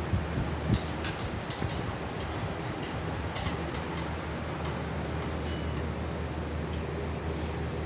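Scattered light clicks and one sharper knock, as of equipment parts being handled, over a steady low hum.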